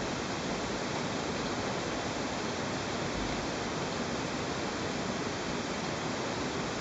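Steady, even hiss with a faint thin high tone and no other events: the recording's background noise between narrated phrases.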